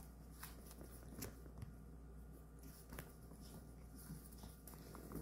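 Faint, scattered clicks and scuffles of a small dog's and a cat's paws and claws on a hardwood floor as they wrestle, over a low steady hum.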